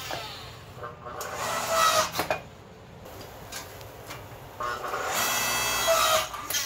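Small electric log splitter converted to a forge press, its electric motor and hydraulic pump running in bursts as it presses. It is louder about one to two seconds in and again about five to six and a half seconds in, with a quieter stretch between.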